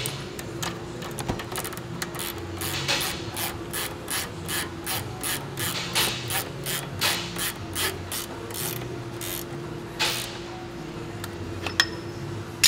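Hand ratchet swung back and forth on a bolt under the car: a regular run of pawl clicks, about three strokes a second, that stops about ten seconds in.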